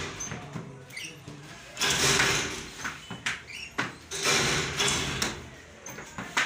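Hand screen-printing on foam flip-flop soles: a squeegee scraping across the silk screen in two long strokes, with sharp knocks as the wooden screen frame is set down on and lifted from the wooden table.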